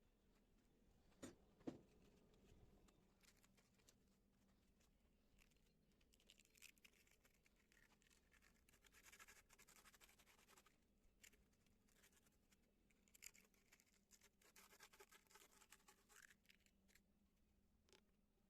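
Near silence with two light knocks a little over a second in, then two stretches of faint scraping and rustling.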